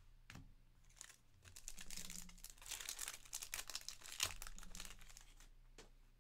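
A foil trading-card pack (Panini Certified football) being torn open and crinkled by hand: a dense crackle of foil that builds after about a second, is loudest through the middle, and fades near the end.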